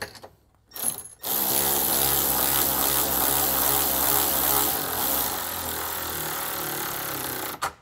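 Red cordless ratchet running a Nylock lock nut up a 5/16 carriage bolt from underneath to snug it, its motor whirring steadily for about six seconds, easing off slightly partway through and stopping abruptly near the end.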